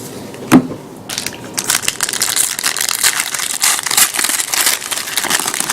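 Wrapper of a 2009 Upper Deck football card pack being torn open and crinkled. A single sharp click about half a second in, then a dense run of crackling from about a second and a half in.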